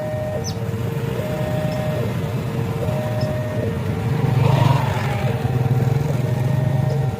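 Railway level-crossing warning signal sounding its repeating two-tone chime, high and low notes alternating, each about four-fifths of a second long. A low engine rumble grows louder about four seconds in.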